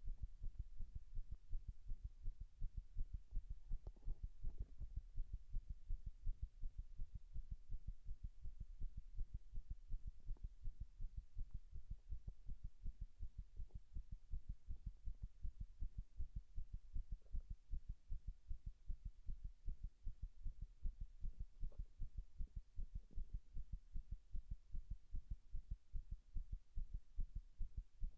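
Human heartbeat picked up close against the chest: a quick, regular run of low lub-dub thumps, with a few sharper knocks among them. The uploader presents it as an arrhythmia, recorded under pressure while standing against a wall.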